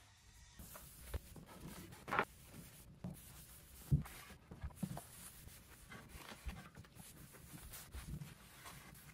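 A cloth rubbing over bare wood boards, with scattered handling knocks; a board knocks against the bench about four seconds in.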